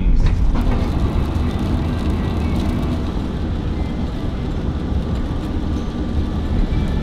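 Steady low rumble of the van's engine and tyres, heard from inside the cab while driving.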